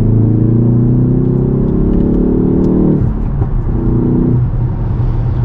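Ford 2.3-litre turbocharged four-cylinder engine pulling under acceleration, its note rising gently for about three seconds. It drops away, pulls again briefly after the next gear, then settles into a steady lower drone.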